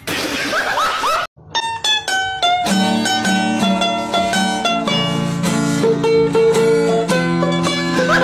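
Background music: a plucked-string melody of short stepped notes that starts after a sudden brief gap about a second and a half in, with a fuller accompaniment joining soon after. Before the gap, about a second of unclear noisy sound.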